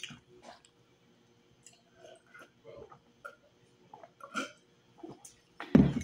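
Quiet chewing and small mouth noises, then swallowing as water is drunk from a glass. Near the end comes a single heavy knock, the loudest sound, as the glass is set down on the table.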